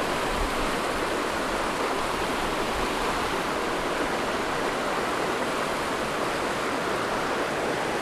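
Whitewater rushing steadily over rocks in the rapids below a river spillway.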